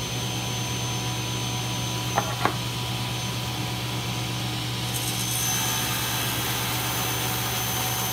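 Table saw running steadily at full speed with a constant motor hum, just after being switched on. Two light knocks come about two seconds in. From about five seconds in a higher hiss joins as the blade cuts into the wooden plane body being pushed through on a sled.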